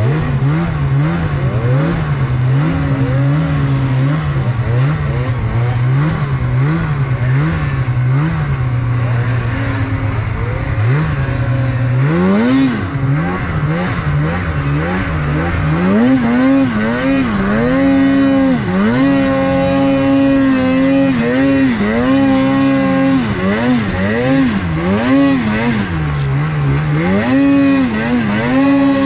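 Mountain snowmobile engine being revved on and off the throttle while riding through deep snow, its pitch swooping up and down over and over. From about twelve seconds in, the throttle blips come quicker and reach higher.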